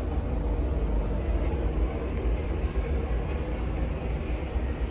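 Steady low rumble of wind and ship noise on the open deck of the Disney Dream cruise ship as it sails.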